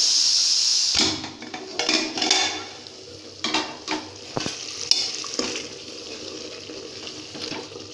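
Pressure cooker hissing steam for about a second, cutting off suddenly. Then a spoon stirring mutton in the open aluminium cooker, scraping and clinking against the pot.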